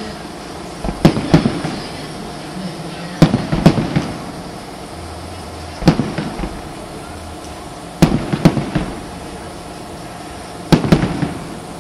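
Aerial firework shells bursting: five groups of sharp bangs about every two and a half seconds, each a loud burst followed by a few smaller pops.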